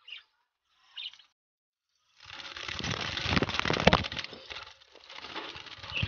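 Rustling and scraping inside a budgie nest box: a noisy burst of about two and a half seconds, loudest around the middle, then a shorter one near the end.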